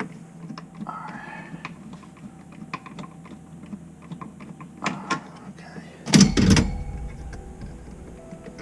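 Scattered small clicks and knocks of tools and hardware being handled, with a louder clatter and thump about six seconds in.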